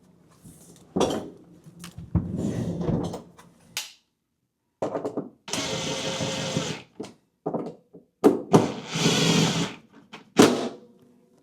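Power drill-driver running in three short bursts of about a second each, with sharp clicks in between, driving screws while the refrigerator door is refitted on its hinges.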